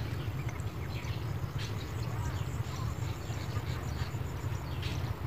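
Background noise: a steady low hum with faint, scattered chirps above it.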